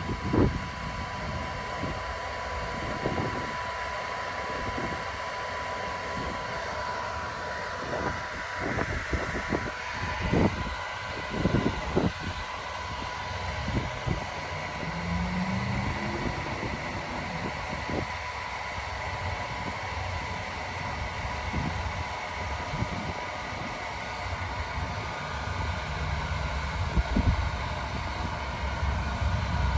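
Hair dryer running steadily with a constant motor whine while blowing air into an inflatable swimming pool, with scattered knocks and thumps from handling.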